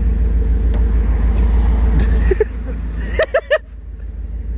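Tow truck engine idling with a steady low rumble that drops away about two seconds in. About three seconds in comes a quick run of short vocal sounds.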